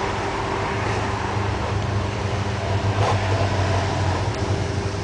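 Rottweiler growling low and without a break while play-biting a person's hand, loudest in the middle of the stretch.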